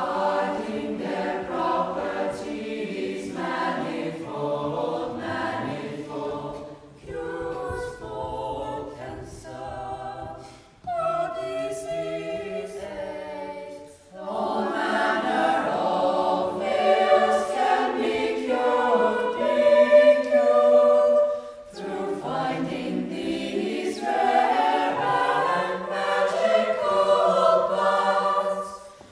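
A chorus of young male and female voices singing in several phrases, with short pauses between them.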